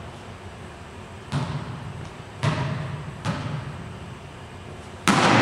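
A volleyball thudding three times, about a second apart, each thud echoing around the gymnasium. Then a louder, sharper hit of the ball comes near the end.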